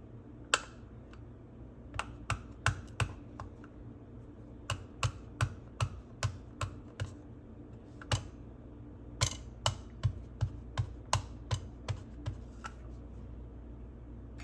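Wooden-block rubber stamp dabbed again and again onto an ink pad, sharp clicking taps in short runs of several, about two or three a second, with pauses between runs. The loudest is a single tap about half a second in.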